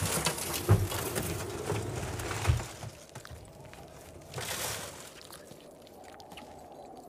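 Film sound effects: a sudden burst of rustling, clicking and scraping with two heavy thumps in the first three seconds, then a quieter bed with a short swell about four and a half seconds in.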